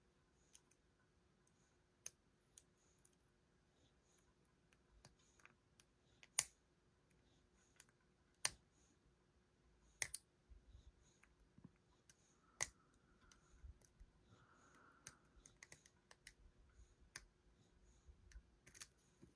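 Faint, irregular small clicks and ticks of a lock pick and tension wrench working the pins of a pin-tumbler lock, with a few sharper ticks scattered through.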